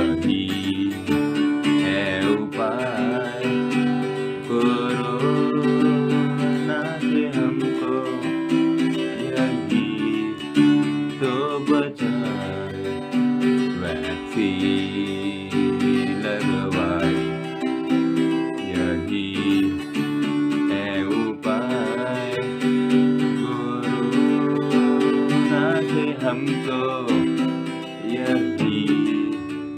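A boy singing a song while strumming chords on an electric guitar, the guitar steady throughout.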